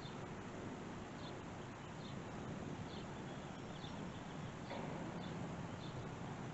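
A small bird chirping over and over, short high calls about once or twice a second, over a steady outdoor background hiss. A low hum grows slightly louder about two-thirds of the way in.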